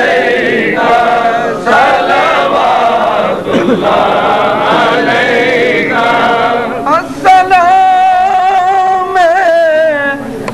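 Men's voices chanting a devotional recitation in unison. From about seven seconds in, a single voice holds one long wavering note.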